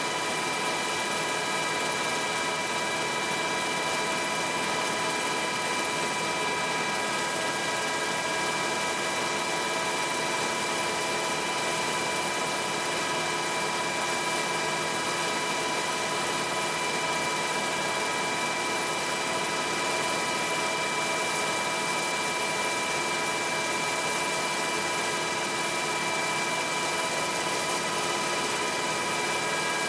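Helicopter engine and rotor noise heard from on board: a steady rushing drone with several steady turbine whine tones, unchanging throughout.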